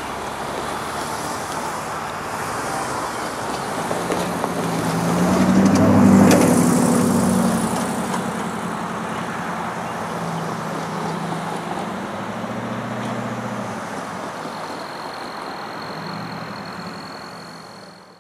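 Diesel freight train passing: the locomotive's engine swells to its loudest about six seconds in, then the steady rumble of the train runs on, with a thin high steady squeal joining near the end before the sound fades out.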